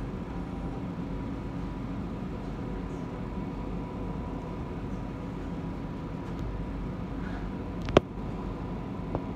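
Alstom Citadis Dualis tram-train running between stops: a steady low running hum with a faint high steady tone. A sharp click about 8 seconds in and a lighter one just after 9 seconds.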